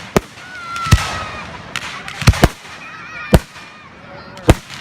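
Fireworks shells bursting: about six sharp bangs, roughly a second apart, with two coming close together a little past the middle, each trailing off.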